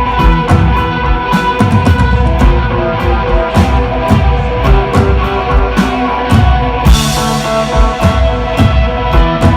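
Rock band playing live: electric guitar sustaining chords over a drum kit, with a cymbal crash about seven seconds in.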